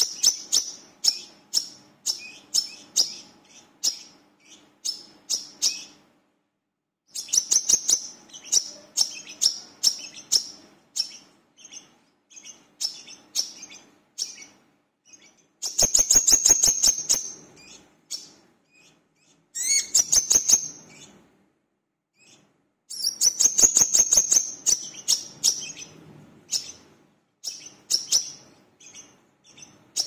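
Brown-throated sunbird (kolibri kelapa) singing: rapid strings of sharp, high chirps and ticks in bouts, broken by short pauses.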